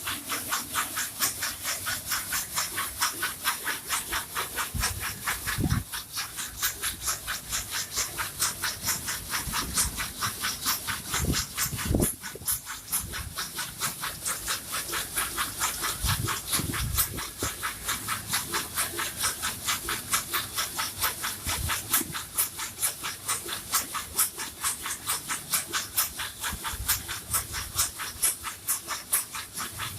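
Bamboo satay-skewer smoothing machine running with a load of skewers, a rubbing hiss of bamboo sticks against each other that repeats about four times a second. A few short low knocks come through a third and a half of the way in.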